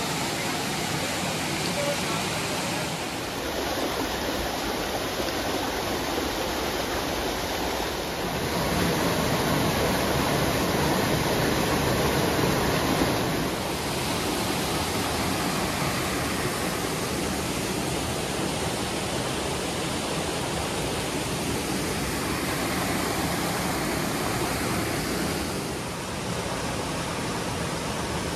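A rocky stream rushing over small cascades and boulders: a steady rush of water whose loudness shifts a few times.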